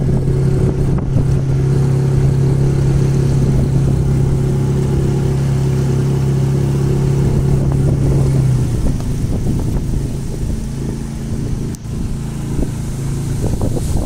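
A boat's motor running steadily under way, a loud, even engine hum. A little past halfway through, its steady tone breaks up into a rougher, less even running.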